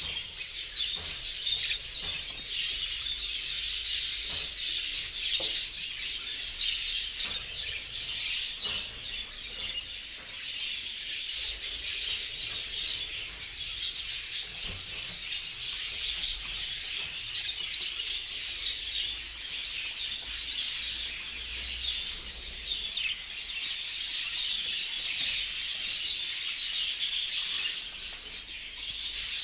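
A group of budgerigars chattering continuously, many high chirps and warbles overlapping without a break.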